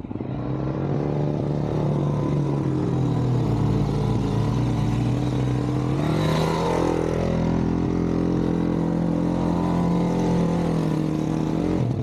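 Suzuki DR-Z400's single-cylinder four-stroke engine running steadily, with a rev that lifts the pitch and lets it fall back about halfway through.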